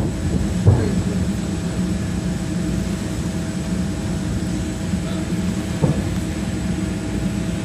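Two dull booms from distant aerial firework shells, one about a second in and one near six seconds, over a steady low engine drone.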